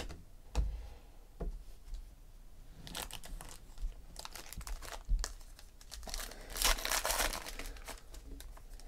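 Hands handling trading cards and a pile of foil packs, with light scattered clicks, then the crinkling and tearing of a 2017 Panini Classics Football pack wrapper being ripped open, loudest from about six seconds in.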